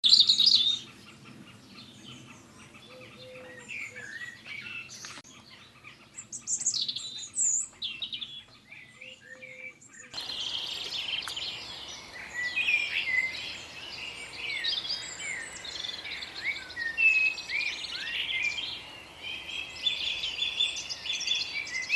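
Small birds chirping and singing in many short, overlapping calls. About ten seconds in, the sound changes to a denser chorus of chirps over a steady background hiss.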